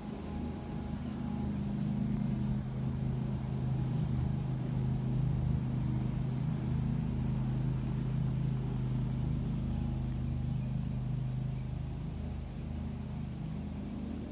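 A steady low hum from a running motor, even throughout, with no rise or fall.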